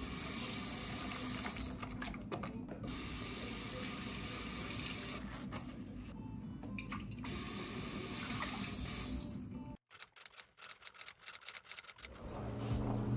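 Water running from a tap into a sink while hands are washed, then water poured out of a bottle into the sink. The rushing flow dips a few times and cuts off suddenly about ten seconds in.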